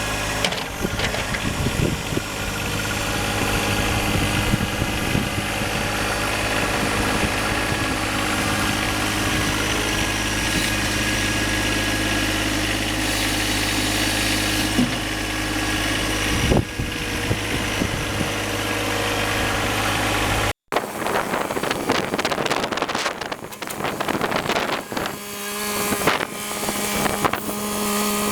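John Deere 1025R compact tractor's three-cylinder diesel engine running steadily. About two-thirds through, the sound drops out for an instant and comes back rougher and more uneven.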